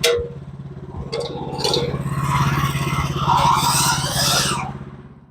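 Sawmill running: an engine drones steadily while the saw cuts through a log, its rasping rising and falling. About a second in there is a sharp click, and near the end everything fades out.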